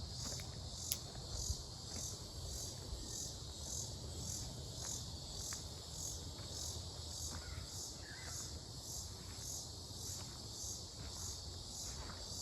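High-pitched insect chorus, an even rhythmic pulsing about twice a second with a fainter steady high whine above it, from an insect the recordist cannot identify and takes for cicadas.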